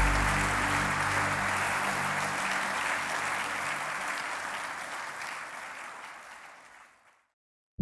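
Audience applauding, fading out gradually over about seven seconds, with background music underneath that fades out first.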